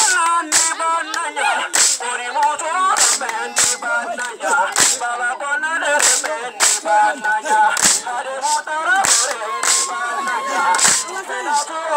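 Village dance music: a sharp percussive crack on an even beat, about one every 0.6 seconds, over several voices singing or chanting at once.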